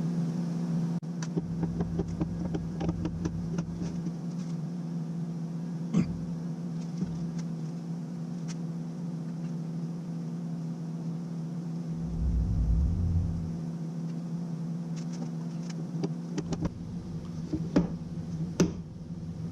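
A steady low mechanical hum, with scattered light clicks and knocks as boards and a glue bottle are handled during the glue-up; a sharper click comes about six seconds in and a few more near the end.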